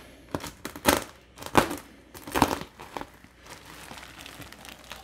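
Plastic wrap and packing tape on an insulated shipping liner crinkling and tearing as the tape is cut with scissors and pulled away: about five separate bursts in the first three seconds, then a quieter rustle.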